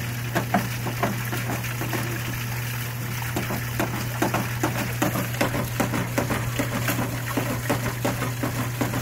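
Water gushing out of a rain gutter downspout's bottom elbow and splashing onto the grass in irregular spatters, the downspout being flushed clear with a garden hose fed into the gutter.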